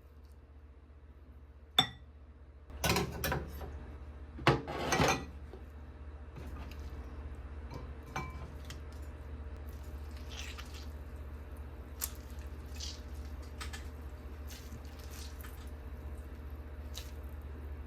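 Dishes and utensils being handled in a home kitchen: a sharp clink about two seconds in, two short louder bursts of handling noise around three and five seconds, then scattered light clicks and taps over a steady low hum.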